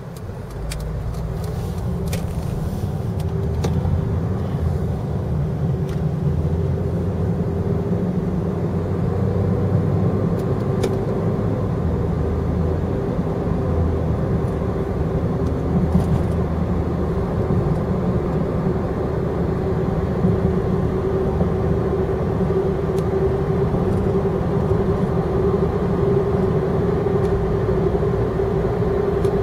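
Road and engine noise of a car heard from inside, building over the first few seconds as it pulls away and gathers speed, then a steady drone at cruising speed. A steady hum grows stronger in the second half.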